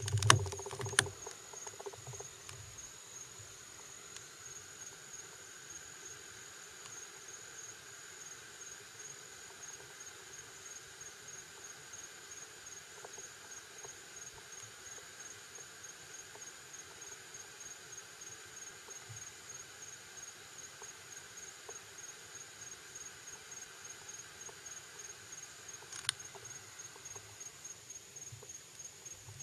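Crickets chirping steadily, a high, even trill pulsing about four times a second, with a fainter lower insect buzz beneath. A few sharp clicks and knocks in the first second and a single sharp click near the end.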